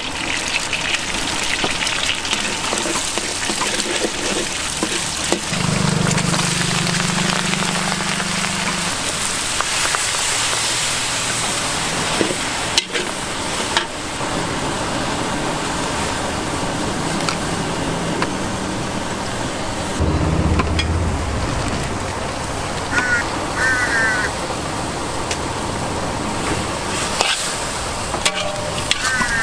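Food sizzling in a large wok as egg, cabbage and noodles are stir-fried, with a metal spatula scraping and knocking against the wok now and then. A low hum comes up twice in the background.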